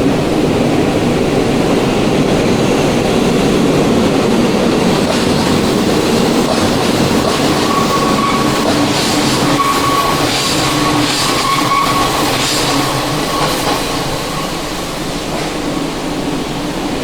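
A train passing, a loud steady rumble, with thin squealing tones coming and going in the middle of the pass.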